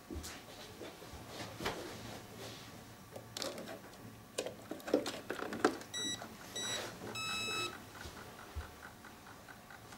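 Handling clicks and rustles on an RC truck as its electronic speed controller is switched on, then the controller's start-up beeps: two short beeps about six seconds in and a longer tone just after, followed by a faint ticking about three times a second.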